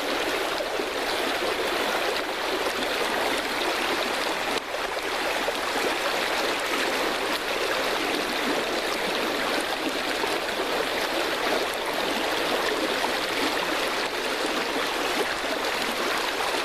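Creek water flowing, a steady rushing hiss without pauses or distinct splashes.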